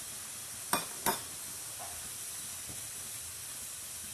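Thin-sliced steak sizzling in butter in a frying pan, a steady hiss. Two sharp clicks of a utensil against the pan come about a second in, with a fainter knock just after.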